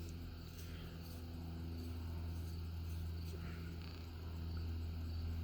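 A steady low hum with a few faint light ticks and a brief faint scratch near the middle.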